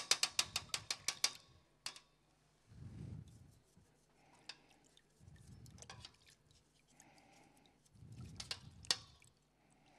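Kitchen utensils and dishes clattering: a quick run of about a dozen sharp knocks in the first second and a half, then scattered clinks and a short burst of knocks near the end.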